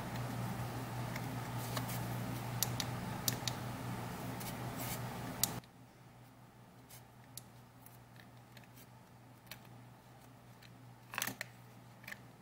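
Scattered short clicks of a gloved fingertip tapping an iPhone's touchscreen and handling the phone, entering the passcode. Under them a steady low hum cuts off suddenly about five and a half seconds in.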